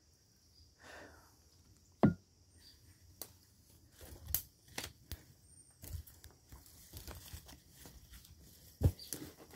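Footsteps pushing through dry undergrowth: leaves crunching and twigs crackling, with two sharp snaps, one about two seconds in and one near the end.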